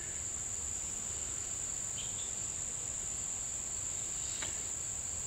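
Insects trilling in a steady, unbroken, high-pitched chorus, with a couple of faint soft clicks.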